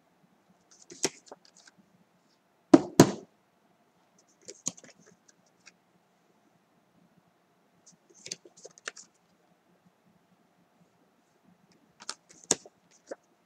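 Paper flash cards being handled and swapped: short rustles and taps every few seconds, with a loud double knock about three seconds in.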